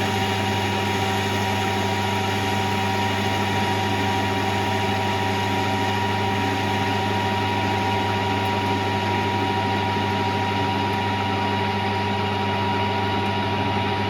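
Warco GH1330 geared-head metal lathe running during a turning cut: its motor and headstock gears give a steady hum with several unchanging tones.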